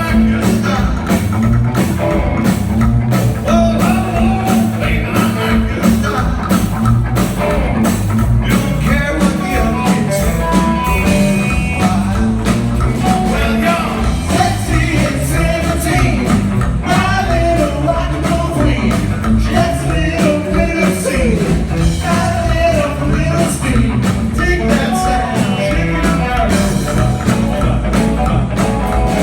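Rockabilly trio playing live: fast drums, a driving upright bass line and electric guitar, with singing.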